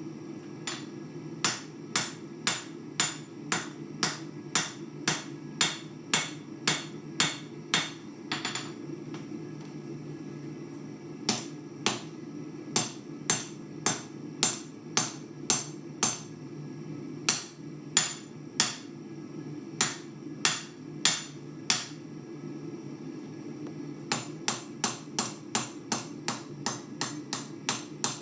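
Hammer blows on hot steel, forging out the blade of a knife made from an old farrier's rasp. The blows come in runs of about two a second, broken by short pauses, with a quicker run near the end. A steady low hum runs underneath.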